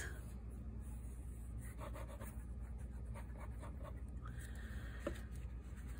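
Faint rubbing and scratching of glue being spread along the score line of a paper notepad cover, with a small click about five seconds in.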